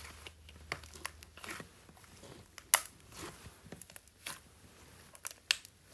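Pale blue slime being squeezed and kneaded by hand, crunching with irregular sharp clicks and pops. The loudest snaps come about three seconds in and again near the end.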